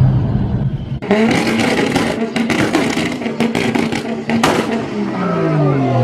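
Car exhaust backfiring: a string of sharp bangs and pops over the running engine, the loudest single bang about four and a half seconds in. Near the end the engine note falls away.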